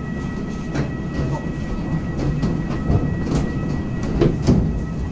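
Footsteps on a hard floor with irregular knocks and clatter, about one or two a second, over a steady low rumble and a faint high hum.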